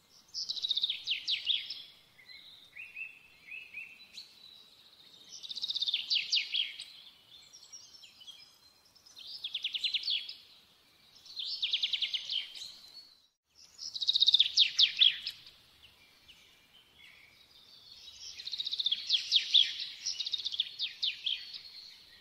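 A songbird singing, about six short phrases of rapid trilled notes, each one to three seconds long, with pauses between.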